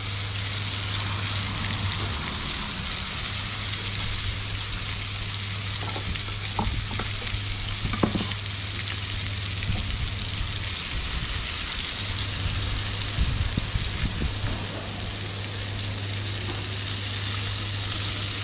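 Food frying in hot oil: a steady sizzle, with a few light clinks of a utensil against the pot partway through.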